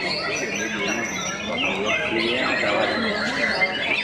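Many caged songbirds singing at once: a dense, unbroken chorus of quick whistles, chirps and trills, with people's voices underneath.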